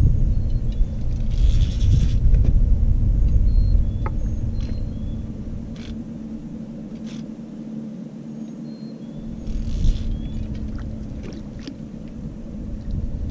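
Wind buffeting the microphone as a gusty low rumble, easing off for a few seconds in the middle before picking up again, with small birds chirping in the background.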